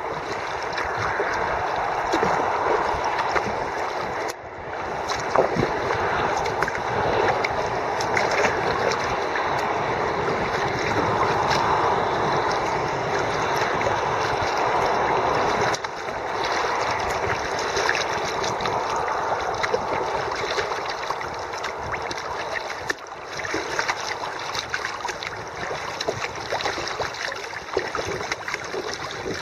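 Fast flood-swollen river water rushing and splashing around a kayak, with scattered sharp splashes and drips as it is paddled.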